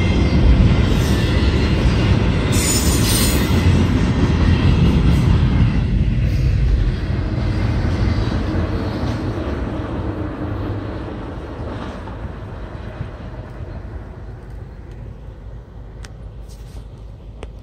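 Double-stack intermodal freight cars rolling past on steel rails, a heavy rumble and clatter of wheels, with a brief high wheel squeal about three seconds in. The sound fades steadily as the end of the train passes and draws away.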